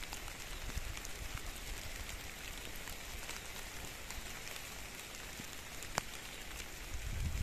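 Outdoor field ambience: a steady hiss with faint scattered ticks, a single sharp click about six seconds in, and a low wind rumble on the microphone near the end.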